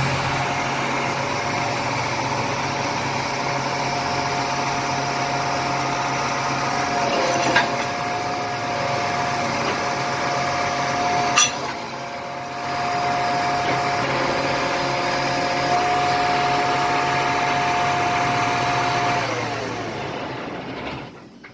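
A motor or small engine running steadily with a high whine, with two sharp clicks partway through, then slowing and winding down near the end.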